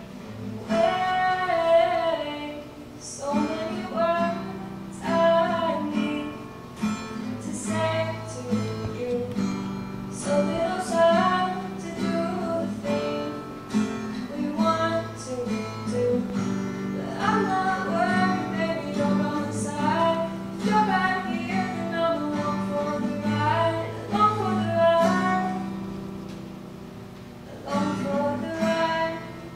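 A woman singing solo to acoustic guitar accompaniment, her voice carried through a microphone. The singing breaks off briefly near the end while the guitar plays on, then comes back in.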